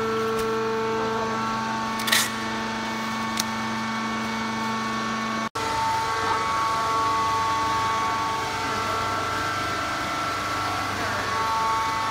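Wood shavings baling press running: a steady machine hum with several held tones, a short hiss about two seconds in and a click a second later. The sound drops out for an instant about halfway through and carries on with a slightly different set of tones.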